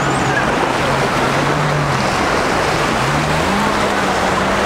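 Small waves washing in the shallows over the hum of a jet ski engine, whose pitch rises about three seconds in.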